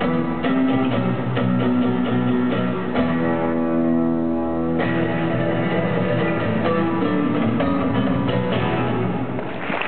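Floor-exercise music led by plucked guitar, played over the arena loudspeakers. About three seconds in, the picking gives way to a held chord for a couple of seconds, then resumes.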